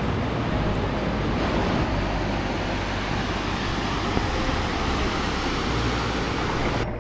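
Steady rush of breaking surf and wind on an open beach, even and unbroken; the hiss drops away abruptly near the end.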